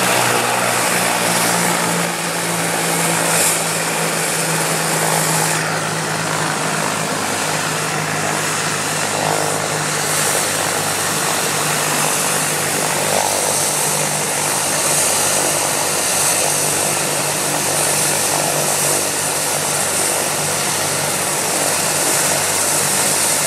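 Medical helicopter sitting on the ground after landing with its turbine engine running and rotor turning, a steady loud turbine whine and rotor noise with a low hum underneath.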